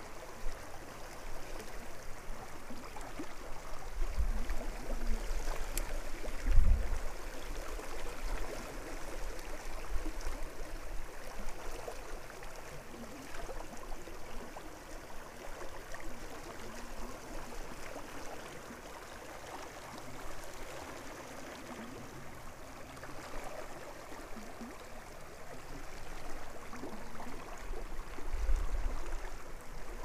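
River current flowing past a stony bank: a steady watery rush. A few low thumps on the microphone break in, the strongest about seven seconds in and more near the end.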